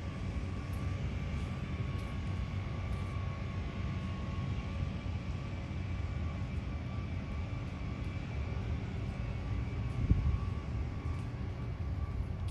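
Steady low rumble of distant engines, with a faint steady whine above it and a brief louder bump about ten seconds in.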